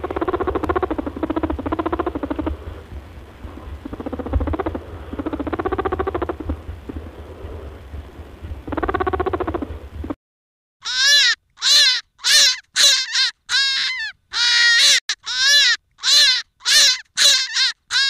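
Rabbit vocalizations in two parts. First come three bouts of low pitched calls over a steady low rumble. Then, after a short pause, comes a rapid series of short squeals, roughly two a second, each rising and then falling in pitch.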